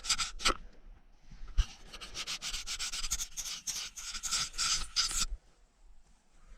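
Quick, repeated scratching or rubbing strokes. They break off about half a second in, resume at about a second and a half, and stop at about five seconds.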